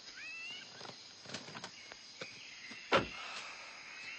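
Jungle ambience: short gliding bird-like calls over a steady high insect drone, with a few light knocks and one sharp thump about three seconds in.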